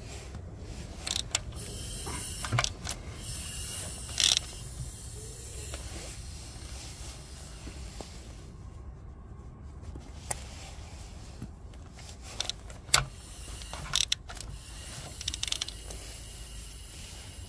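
A few scattered, sharp clicks and light knocks of hand tools and parts being handled, over a steady low background hiss.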